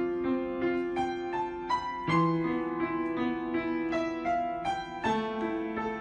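Background piano music: a slow melody of single struck notes, a few a second, over held lower chords that change about two and five seconds in.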